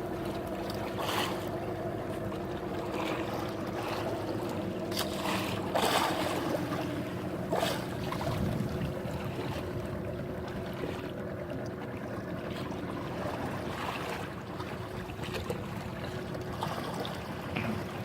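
Boat engine running steadily, with water and wind noise and a few brief knocks.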